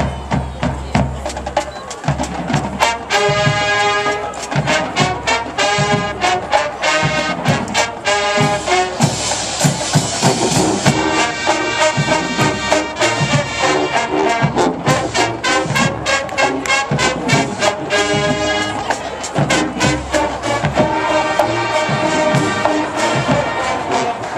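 Marching band playing: a full brass section with sousaphones carrying the tune, loud and steady, over frequent drumline strikes.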